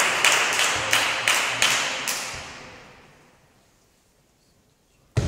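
Spectators clapping in an even rhythm of about three claps a second, fading out between two and three seconds in to a hush in a large hall. Right at the end a single sudden loud sharp sound breaks the quiet.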